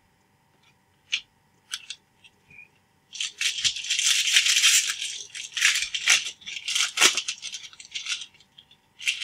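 Foil wrapper of a pack of trading cards crinkling and tearing as the pack is opened: a dense crackling from about three seconds in until about eight seconds, after a few light clicks of cards being handled.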